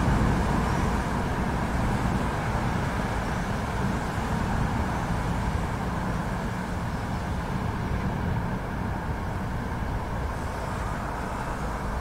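City thunderstorm ambience: a dense, low rumbling noise with no sharp cracks, slowly fading.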